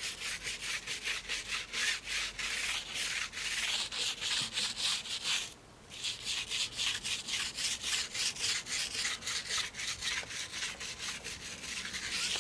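Small detailing brush scrubbing wet foam over the face of a Porsche twist alloy wheel, agitating iron fallout remover in quick back-and-forth strokes, several a second. A short pause comes about five and a half seconds in.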